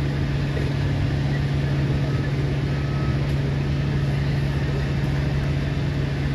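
Running machinery making a steady, unchanging low hum.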